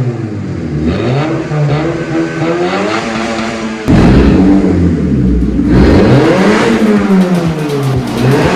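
Car engine revving repeatedly through its exhaust, the pitch climbing and falling with each blip. About four seconds in it turns suddenly louder and deeper.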